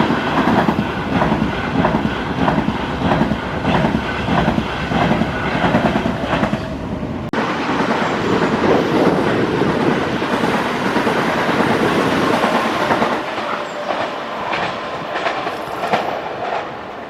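Electric train running past on the rails, its wheels clicking in a steady rhythm over the rail joints. The sound changes abruptly about seven seconds in, then fades slowly toward the end.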